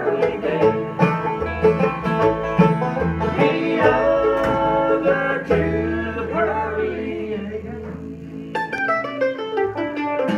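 Live acoustic string band playing bluegrass-style music: acoustic guitars and upright bass with a man singing. The playing thins out and quietens about six seconds in, then a run of quick picked notes comes in near the end.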